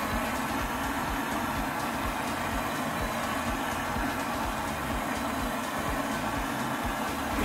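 Handheld gas torch burning steadily, its flame played over the end of a wooden rod to scorch the wood.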